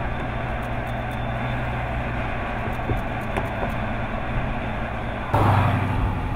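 Supercharged 6.2-litre HEMI V8 of a Dodge Charger SRT Hellcat running steadily at a cruise. About five seconds in, the sound becomes suddenly louder as the car pulls away from behind.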